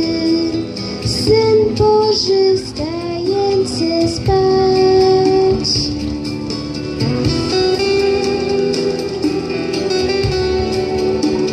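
A girl singing a song through a microphone over a guitar accompaniment.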